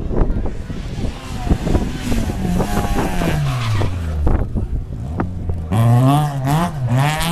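Rally car engine passing close: the revs fall away for a couple of seconds as it comes off the throttle, then about six seconds in it is revved hard, the pitch climbing and dipping as the car slides through the bend, over crowd chatter near the start.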